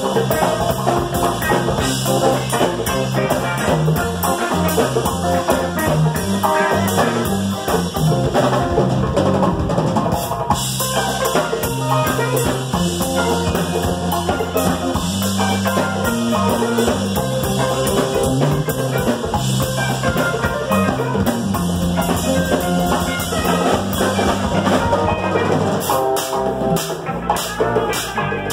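Live instrumental band music: electric guitars, electric bass, a drum kit and a djembe playing together with a busy, steady drum rhythm.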